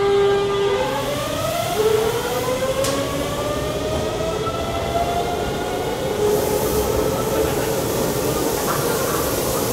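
Tobu 100 series Spacia's Hitachi GTO-VVVF inverter and traction motors whining as the train accelerates away: a steady tone that steps up about a second in, then several tones rising slowly in pitch as it gathers speed.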